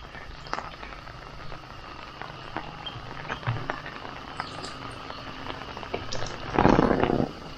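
Steady rain falling, with many small scattered drop ticks over a soft hiss. Near the end a brief, louder rush of noise lasts under a second.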